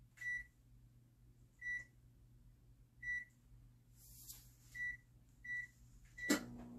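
Microwave oven being set: six short high beeps from the keypad a second or so apart. Then a click near the end as the oven starts, and it runs with a low steady hum.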